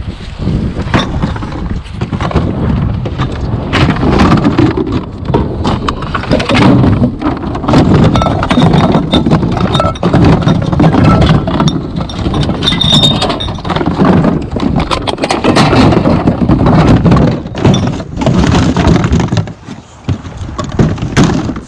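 Many irregular knocks and clatters over a low rumble, with a quieter spell near the end.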